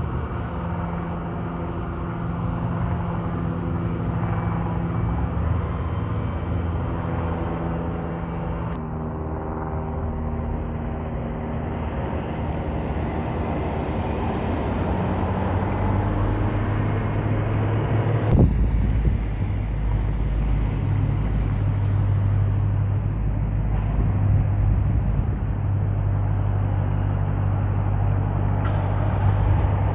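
Motor vehicle engines running steadily in street traffic, with a low hum that grows stronger past the middle and a single sharp knock about two-thirds of the way through.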